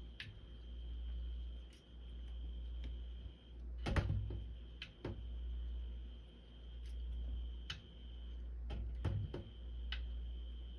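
A cat batting at a door-hung toy: scattered light clicks and taps, loudest in two quick clusters about four and nine seconds in. Under them runs a low hum that swells and fades every two to three seconds, with a faint steady high whine.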